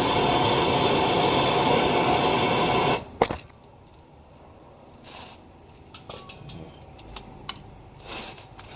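MAP gas torch flame hissing steadily, then shut off abruptly about three seconds in with a sharp click. After that come a few light clicks and knocks of tool handling.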